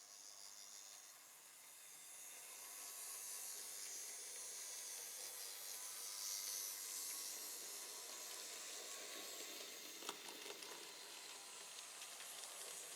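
Z gauge model locomotive running along the track: a faint, high hissing whirr from its small motor and wheels that grows louder a couple of seconds in, with one sharp click about ten seconds in.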